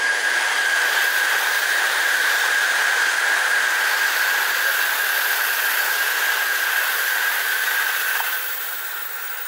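An N700-series Shinkansen bullet train passing close by at speed: a loud, steady rush with a high whine held through it, fading near the end as the last cars go by.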